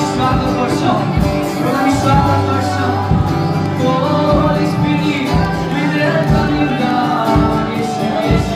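Live worship song: acoustic guitar played with voices singing through microphones and a PA, with a sustained bass line underneath.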